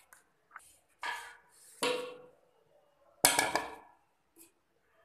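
Crockery and a spoon clattering as bowls are handled and set down on the kitchen counter. There are three short clatters, the last and loudest about three seconds in, with a brief rattle.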